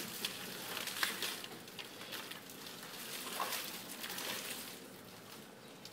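Coconut palm fronds rustling and crackling irregularly under a person shifting and lying down on them, loudest about a second in and fading toward the end.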